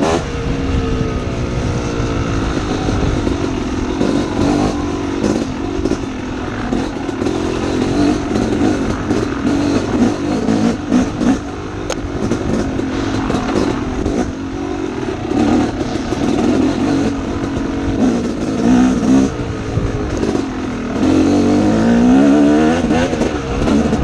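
Dirt bike engine revving up and down continuously as it is ridden along a rough single-track trail, with scattered knocks over the bumps. Near the end the engine pulls through a longer rising rev.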